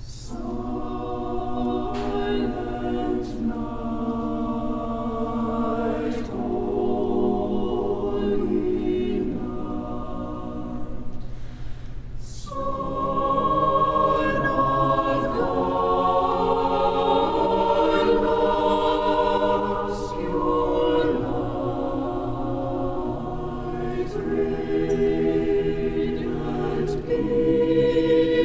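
Choir singing in harmony, holding long sustained chords with occasional sharp 's' consonants, growing fuller and louder about halfway through.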